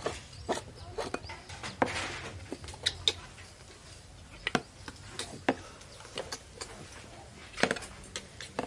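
Plastic toy dump truck being moved across a concrete floor: irregular clicks and knocks from its plastic bed and wheels, over a faint low rumble.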